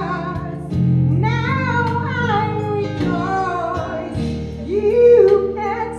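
Gospel praise team singing a worship song into microphones, women's voices leading in long held notes, over a steady instrumental backing.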